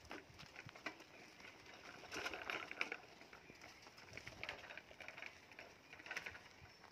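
Faint outdoor ambience with scattered short bird chirps a few times, around two to three seconds in and again near the end.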